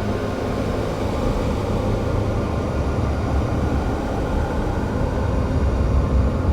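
Steady, dense low rumbling noise with no beat or melody, part of a noise passage in an experimental music track.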